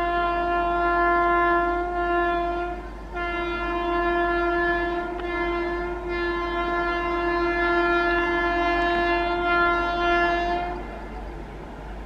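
WAP-7 electric locomotive's twin-tone horn sounding as the train approaches at speed. It gives a blast of about three seconds, breaks briefly, then holds a long steady blast of about seven and a half seconds over the noise of the running train. The horn cuts off about a second before the end.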